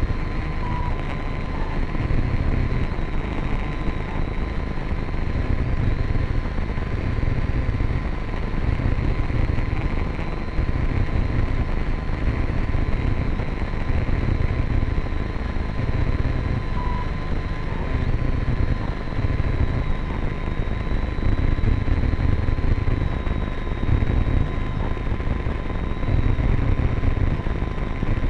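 A drone's electric motors heard from its onboard camera: a steady high whine that drifts slightly in pitch, over heavy wind buffeting on the microphone that surges every second or two.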